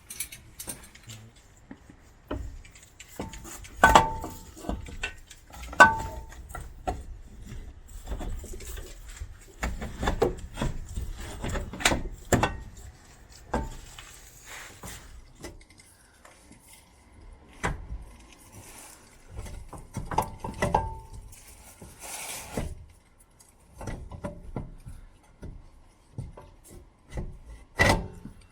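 Hand tools clinking, knocking and scraping against metal as a compression fitting is tightened onto a copper suspension pipe. Irregular knocks, with short ringing metal clinks about four and six seconds in and again around twenty-one seconds, and a sharp knock near the end.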